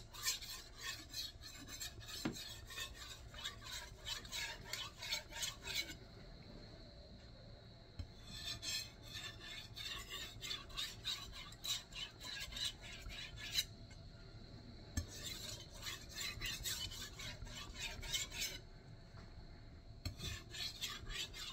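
A Nitro-V steel gyuto edge stroked back and forth with light pressure on a 12000-grit Shapton Kuromaku whetstone: soft, quick scraping strokes, several a second, in runs broken by three short pauses. This is the final polishing stage of sharpening.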